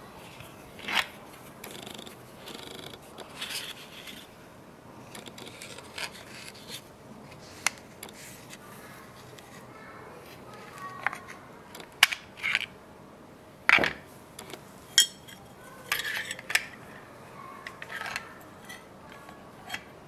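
Small steel karambit knives and their hard Kydex sheaths being handled: scattered clicks, taps and short scrapes as blades and sheaths knock together and are set down. The clicks come thicker and sharper in the second half.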